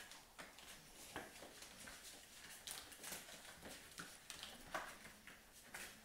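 Newborn puppies nursing on their mother, heard faintly as irregular soft suckling clicks and smacks with a few small squeaks.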